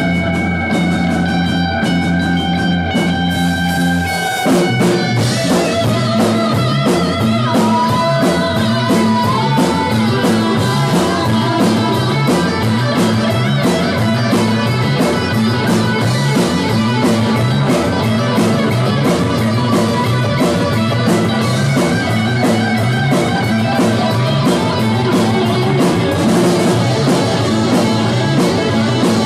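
Live rock band playing: electric guitar over bass and drum kit. Held guitar notes ring for about the first four seconds, then the band moves into a steady, rhythmic riff with the drums driving it.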